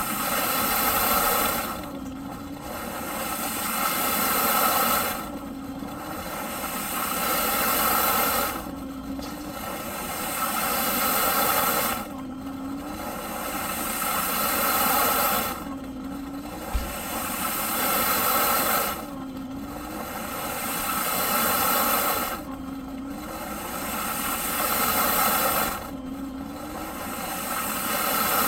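Eureka PowerSpeed upright vacuum cleaner running, its hissing motor sound swelling and dropping back in a regular cycle about every three and a half seconds, with the motor's pitch dipping briefly at each drop. A single short low knock about two-thirds of the way through.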